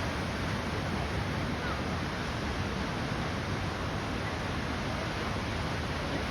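Ocean surf making a steady rushing noise that holds an even level, with no separate wave crashes standing out.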